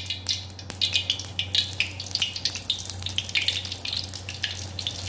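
Flour-coated chicken pieces sizzling and crackling in hot oil in a wok as they are lowered in with tongs. The crackling grows busier about a second in, over a steady low hum.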